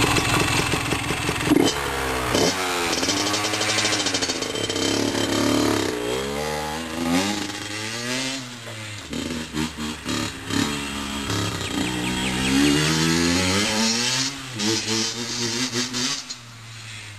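Honda CR85R two-stroke 85cc single-cylinder dirt bike engine being ridden, revving up and falling back again and again as the throttle is opened and closed. It gets quieter near the end as the bike moves away.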